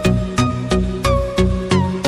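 Background music with a steady electronic beat, about three beats a second, over held synth notes.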